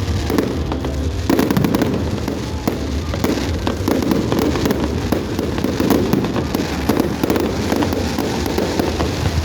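Fireworks display: a dense, continuous stream of crackling and popping shell bursts over a steady low rumble.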